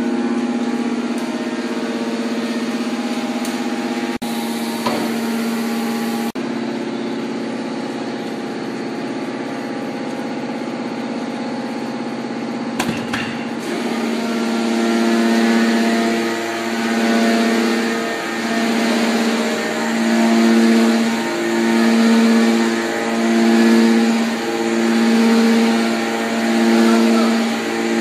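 Hydraulic pump unit of an Enerpat T200XL metal baler running with a steady, pitched hum while it presses scrap radiators, with a couple of clicks about four and six seconds in. About halfway through, the hum begins to swell and fade in a regular pulse, about once every second and a half.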